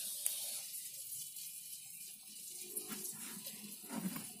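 Hands rummaging through damp, crumbly soil on a wire-mesh sieve: a soft, steady rustle with small scattered crackles.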